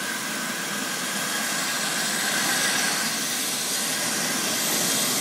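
Medical helicopter running on the ground with its rotor turning: a steady turbine hiss with a faint whine, growing slightly louder.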